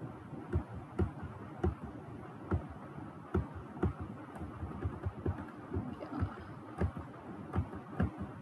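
Computer mouse clicking irregularly, about two sharp clicks a second, over a low steady background hiss.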